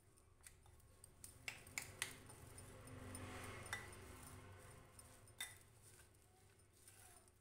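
Faint clinks and scraping of a metal spoon against a glass bowl as a thick flour-and-egg mixture is stirred, with a few sharp ticks about a second or two in and again later.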